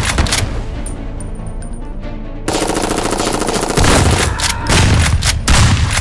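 Gunfire sound effects over background music: a few shots at the start, then from about halfway a fast, rapid-fire burst with several louder cracks near the end.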